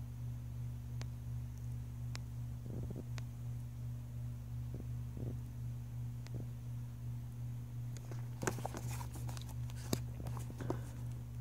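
A steady low hum throughout, with a few faint ticks, then from about eight seconds in a small cardboard box handled in the hands: rustling and clicks as its sleeve is slid open.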